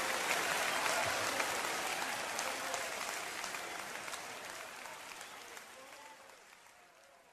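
Congregation applauding, a dense patter of claps fading out steadily.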